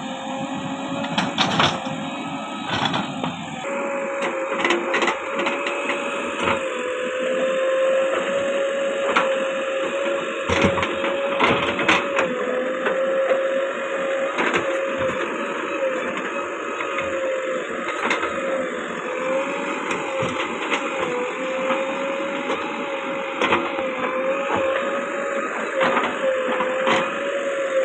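JCB backhoe loader digging out palm roots: engine and hydraulics running under load with a steady whine that wavers slightly in pitch and sets in about three and a half seconds in, with scattered knocks from the bucket and arm.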